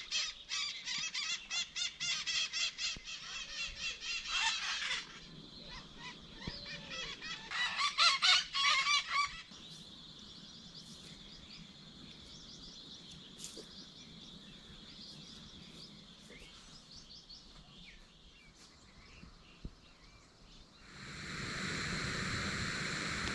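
Birds calling loudly in quick repeated series, for about the first five seconds and again briefly around eight seconds in. A faint, steady high tone follows, and near the end an even rushing noise comes in.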